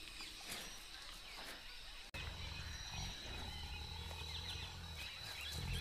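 Faint, soft rasping of a tiger licking its paw. From about two seconds in there is a low steady hum underneath.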